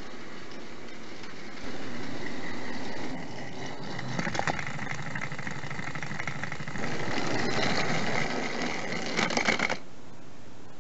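Battery-powered TrackMaster Thomas toy engine whirring along plastic track. There are clusters of rattling clicks, it is louder in two stretches, and it stops near the end.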